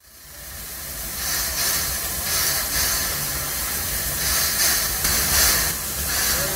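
Steam locomotive No. 43 hissing steam, fading in over the first second, with the hiss swelling and easing irregularly over a low rumble.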